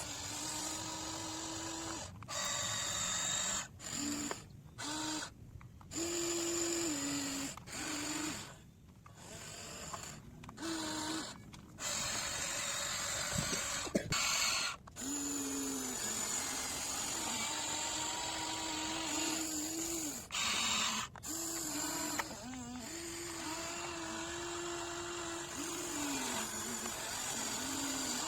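Small electric motor and hydraulic pump of a radio-controlled construction model, whining in spurts that start and stop many times, with the pitch sagging as it cuts out.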